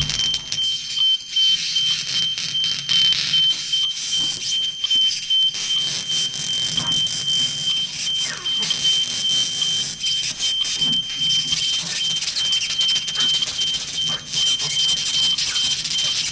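Live electroacoustic improvisation: a steady high electronic tone that flickers slightly, held over a hiss with scattered faint clicks and scrapes.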